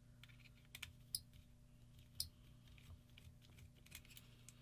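Faint, scattered light clicks of a 3 mm hex key working the frame screws of an electronic paintball marker, over a low steady hum.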